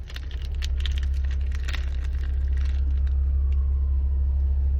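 Steady low rumble of an idling car heard from inside the cabin, with short crackly handling noises over the first few seconds as a slice of birria pizza is pulled from the pie.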